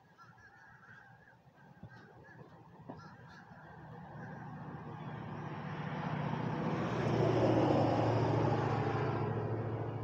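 Crows cawing faintly in the first few seconds. Then a vehicle goes by: its noise swells, is loudest about three-quarters of the way through, and fades again, drowning out the birds.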